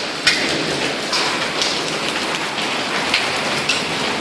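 Heavy rain mixed with hail falling: a steady hiss of rain, with scattered sharp ticks of hailstones striking hard surfaces. The loudest tick comes about a quarter second in.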